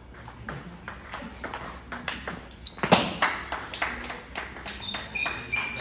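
Table tennis ball clicking off the bats and the table in a rally, a string of sharp ticks with the loudest knock about three seconds in.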